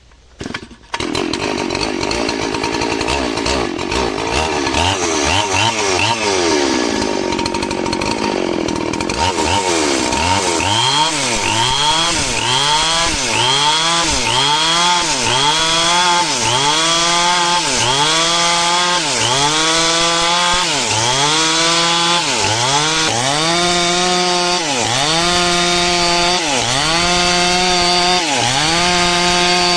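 Stihl chainsaw running at high revs as it cuts a coconut-palm log lengthwise into a beam, starting about a second in. From about a third of the way through, its engine pitch rises and falls in a steady rhythm, a little under once a second.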